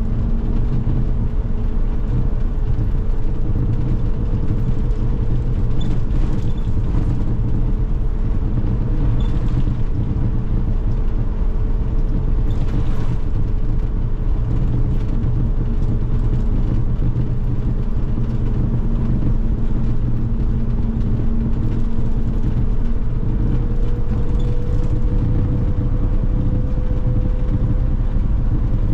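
Cabin noise of an MMI Urby LE CNG city bus, with its Iveco F1C 3.0-litre four-cylinder CNG engine running: a steady low hum with a steady tone that rises slightly near the end. A hiss of draught air through the cabin runs under it.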